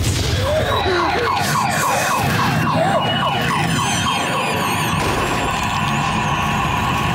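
Loud, dense, distorted soundscape with a fast siren-like warble and gliding tones, a sound-design portrayal of sensory overload in a busy shopping centre.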